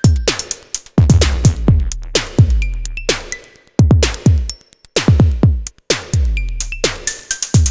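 Electronic background music with a drum-machine beat: deep bass-drum hits that drop in pitch, and sharp snare-like strikes over synth notes.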